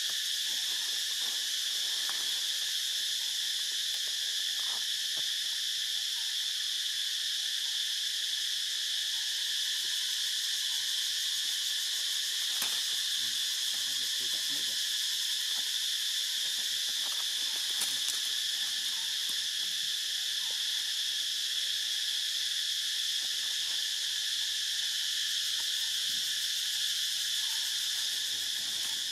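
Steady, high-pitched insect chorus that drones without a break.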